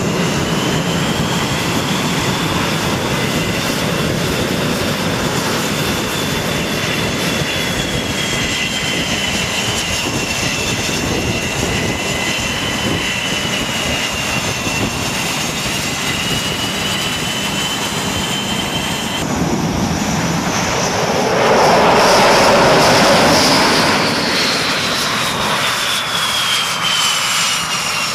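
Turbine aircraft engines running on a carrier flight deck: a steady rushing noise with a high whine that slowly wavers in pitch. Near the end a louder rush swells up for a few seconds and then falls back.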